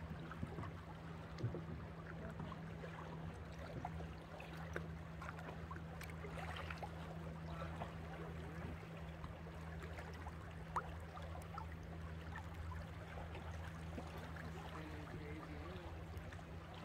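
Boat engine running with a steady low hum, with water gurgling and splashing along the hull.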